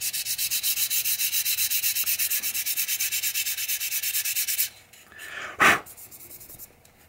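400-grit sandpaper rubbed by hand in rapid, even back-and-forth strokes over a charred hickory hammer handle, lightly sanding off dark spots of char. The strokes stop a little past halfway, followed by one brief louder swish and a few faint strokes.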